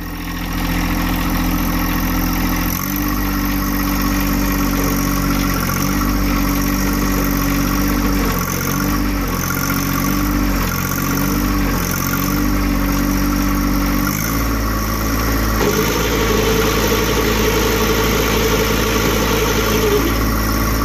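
John Deere 1025R subcompact tractor's three-cylinder Yanmar diesel running steadily, its note shifting down and up several times in the first part while the hydraulic lift raises the front snowblower during a test run. A higher whine joins the engine for a few seconds near the end.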